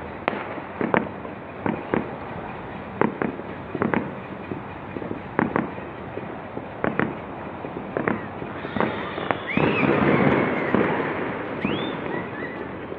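New Year fireworks and firecrackers going off across the city, with separate bangs every half second to a second. About eight and a half seconds in they run together into a denser crackle, with a couple of short whistles.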